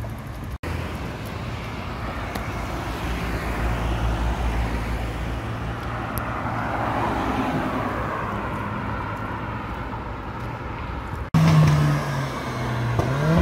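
Road traffic with a Lamborghini Huracán's V10 swelling as it drives past. A black Mercedes-AMG A45's turbocharged four-cylinder then comes in loudly close by, its pitch rising as it accelerates away near the end.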